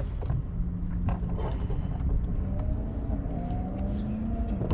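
Spinning reel's drag whining faintly as a hooked jack crevalle pulls line, the tone rising slightly in pitch near the end, over a heavy low rumble.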